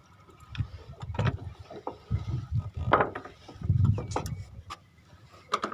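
Irregular knocks, clicks and low thumps, a handful of sharp strikes spread through it, the thumps heaviest about a second before the end.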